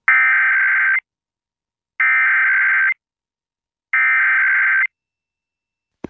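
Emergency Alert System SAME header: three identical bursts of buzzy digital data tones, each just under a second long with about a second's pause between. It is the encoded header that opens an EAS Required Monthly Test.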